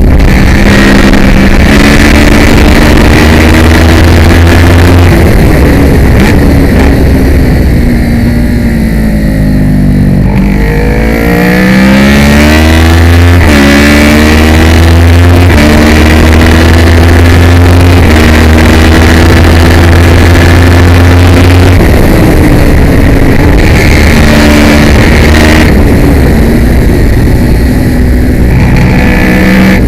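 Kawasaki ER650 parallel-twin race bike engine at high revs. The pitch falls steadily from about six seconds in as the bike slows and downshifts, then climbs again from about eleven seconds in through several upshifts, with loud wind rush throughout.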